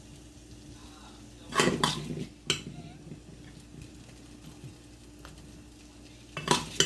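Kitchen utensils clattering against cookware: two short clusters of knocks and clinks, about a second and a half in and again near the end, over a faint steady hum.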